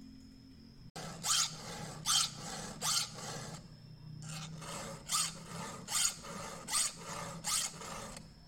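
Round chainsaw file rasping across the cutter teeth of a Stihl saw chain, sharpening the chain. Starting about a second in, it is pushed in regular strokes roughly one every 0.8 seconds, with a brief pause midway.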